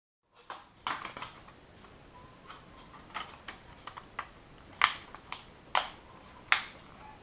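Irregular sharp clicks and taps of small hard parts being handled on a work surface, with a few louder clicks in the second half.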